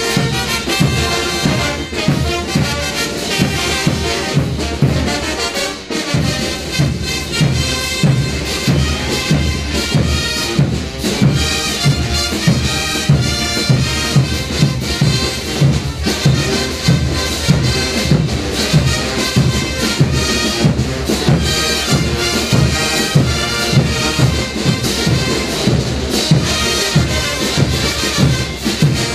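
Brass band playing dance music, horns over a steady bass-drum beat of about two beats a second. The low end drops out briefly about six seconds in.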